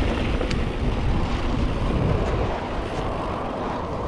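Wind noise on the microphone of a moving bicycle, a steady low rushing noise with a few faint ticks.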